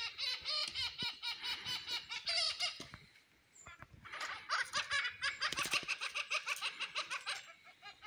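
Magellanic woodpeckers giving fast, chattering high-pitched calls in two bouts, with a short pause about three seconds in.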